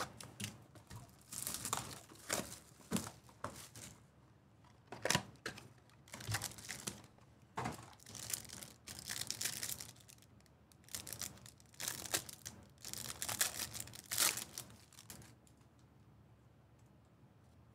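Foil trading card pack wrappers being torn open and crinkled, in a run of irregular rustling tears that stops about fifteen seconds in.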